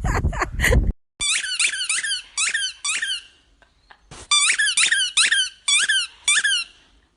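A second of quick, noisy beats, then two runs of short, high squeaks in quick succession: about five, a pause, then about seven more.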